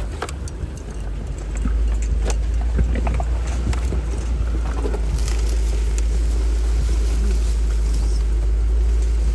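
Vehicle crawling over a rocky off-road trail: a steady low rumble that grows louder about a second and a half in, with scattered knocks and rattles from rocks and the body over the first few seconds.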